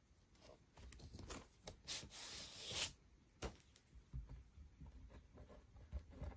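Vinyl LP being handled and slid out of its sleeve: a sliding, papery rustle about two seconds in, followed by light knocks and handling noise as the record is taken out.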